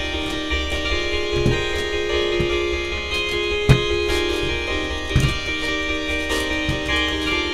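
Background music with plucked guitar and keyboard, and a few sharp clicks over it, the loudest about halfway through.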